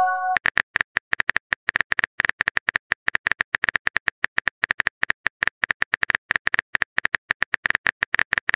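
Simulated phone-keyboard typing sound: a quick, irregular stream of key clicks, several a second, as a text message is typed. The end of a short message chime is heard right at the start.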